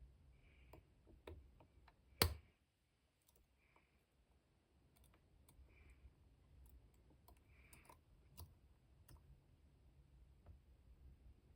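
Faint, scattered clicks of a lock pick and tension wrench working the pin stack of a Master Lock No. 150 padlock, with one sharper click a little over two seconds in. The lock has serrated pins, which catch and click as they are lifted.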